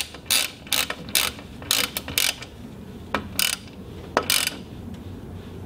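A 7 mm socket ratchet clicking in short strokes, about two or three clicks a second, then a few sparser clicks after about two seconds. It is snugging the small bolts that hold a mass airflow sensor into an aluminium intake tube.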